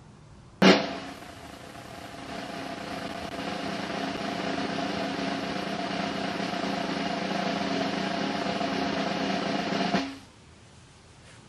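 Snare drum roll: it opens with a sharp hit about a second in, builds steadily in loudness, then cuts off suddenly near the end.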